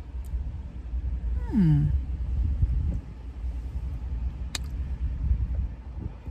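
Steady low rumble of a car's engine idling, heard inside the cabin. About a second and a half in comes a short falling vocal hum, and a single sharp click sounds about four and a half seconds in.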